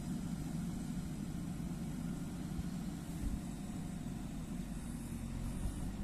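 JCB 3DX backhoe loader's diesel engine running steadily as the rear backhoe arm digs, with a couple of soft low thumps.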